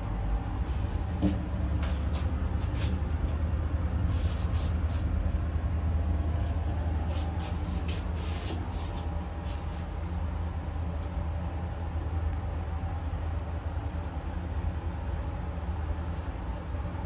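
A glass-walled Italian passenger lift running between floors: a steady low hum from the moving car, with light clicks and ticks in the first half.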